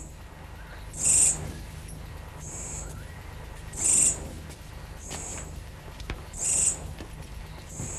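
Night-time ambience: a high-pitched chirping call repeats about every second and a half, alternating between a louder, fuller chirp and a thinner, slightly lower one, over a low steady hum.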